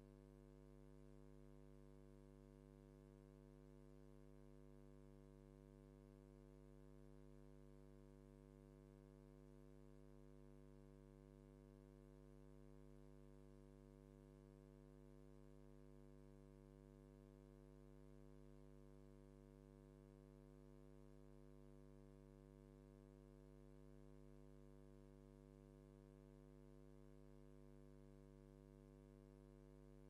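Near silence, with only a faint, steady electrical hum.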